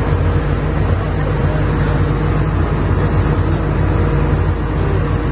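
Komatsu excavator's diesel engine running steadily under load, a continuous low drone with no revving.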